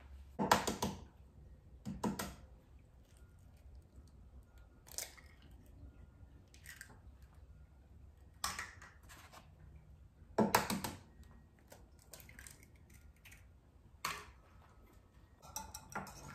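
Eggs being handled and cracked into a small ceramic bowl: a handful of separate sharp taps and knocks, spread out over several seconds. Near the end, a fork starts beating the eggs in the bowl, making rapid clicking strokes.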